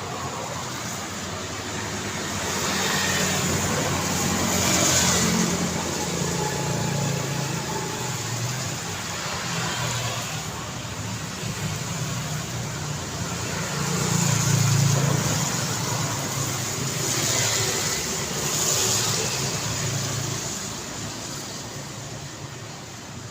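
Steady road traffic on a busy city street, cars and motorbikes going by, growing louder several times as vehicles pass close, most of all about five seconds in and again around fifteen seconds.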